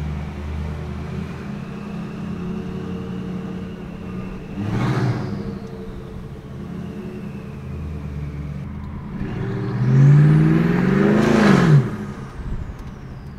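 2003 Audi RS6's twin-turbo 4.2-litre V8, mufflers removed, heard from inside the cabin: a steady low drone while rolling, a short blip of revs about five seconds in, and a longer rev near the end that climbs, falls and cuts off sharply, the loudest part.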